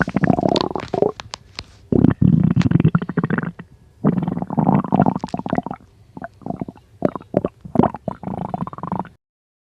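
Stomach growling: long gurgling rumbles in three stretches, then a run of shorter gurgles, cutting off suddenly about nine seconds in.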